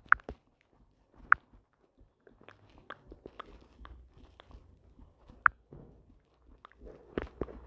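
Irregular sharp clicks and small taps, with three louder clicks about a second apart early on, one alone later, and a busier run of taps near the end.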